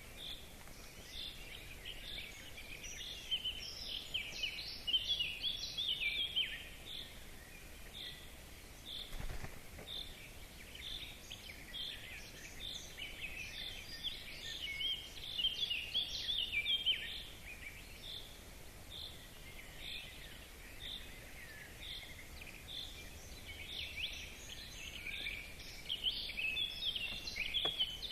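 Birds calling: a short, high note repeated about one and a half times a second, with bursts of busier twittering laid over it now and then.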